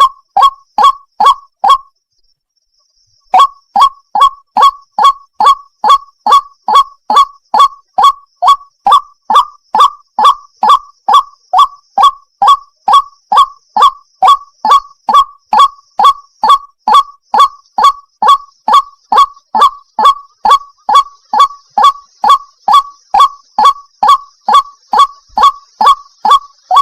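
White-breasted waterhen (ruak-ruak) calling: a loud, fast, steady series of repeated "ruak" notes, about two and a half a second. The series breaks off for a second and a half about two seconds in, then runs on without a pause.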